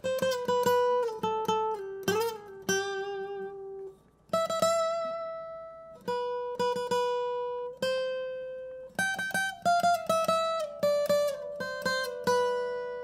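Acoustic guitar being played: picked notes and chords under a ringing melody line, with a brief pause about four seconds in.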